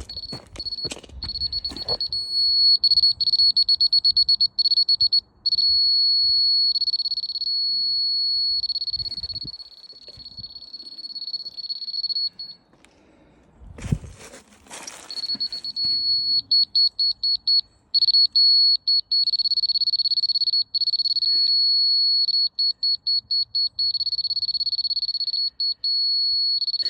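Electronic alarm buzzer sounding one high, shrill pitch: sometimes a held tone, sometimes broken into rapid beeps at about five or six a second. It cuts out for a couple of seconds about halfway through, where there is a thump of handling, then resumes.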